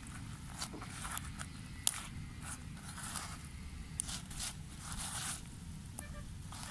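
Hands stuffing chopped herbs into whole fish lying on large leaves: irregular rustling and crinkling of the leaves and soft scrapes, with two sharp clicks about two and four seconds in.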